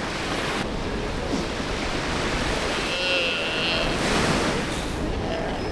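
Steady wash of surf with some wind, and a brief high-pitched animal call about three seconds in.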